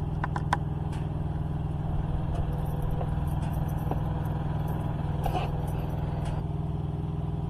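Steady low mechanical hum, with a few light clicks and knocks about half a second in and again near five seconds.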